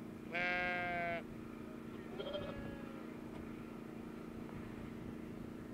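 A sheep bleating once, a call of about a second just after the start, with a fainter call about two seconds in.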